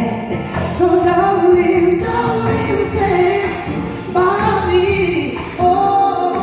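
Live gospel choir singing long held notes in several voices, with the band playing softly beneath.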